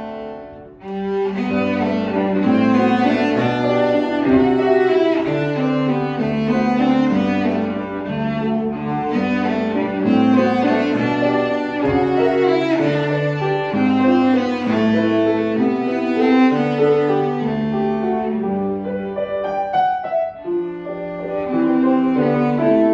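Cello playing a slow, singing melody with piano accompaniment, the music breaking off for a moment about a second in before the phrase resumes.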